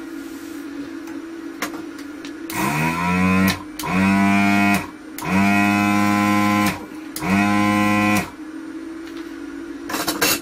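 Anesty ZD-915 desoldering station's vacuum pump run four times, about a second each, as the gun's trigger is pulled. The first run starts with a quick rising whine, and each settles into a steady pitched drone. A constant low hum and a few small clicks lie underneath.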